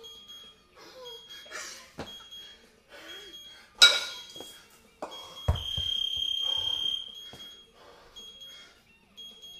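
An electronic timer beeping about once a second, then one long, louder beep about five and a half seconds in that marks the end of the ten-minute set. Just before four seconds the two 22 kg kettlebells give a sharp metal clink. As the long beep starts, there is a deep thud of the kettlebells being set down on the floor.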